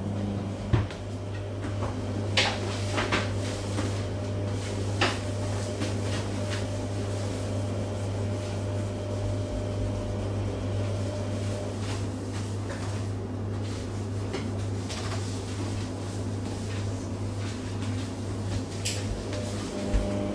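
Household cleaning noise in a kitchen: a steady low hum with a few sharp knocks and clatters as things are handled, mostly in the first five seconds and again near the end.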